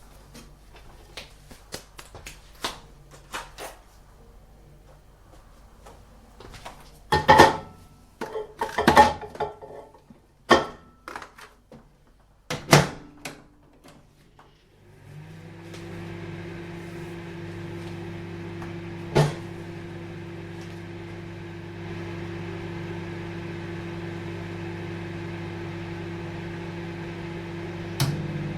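Microwave oven: a run of small clicks, then several louder knocks and clatters, and about halfway through the oven starts with a steady hum that carries on. A single sharp click comes partway through the hum, and another near the end.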